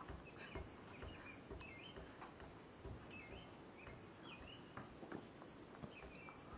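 Faint bird chirps repeating in short, similar phrases, with scattered soft clicks.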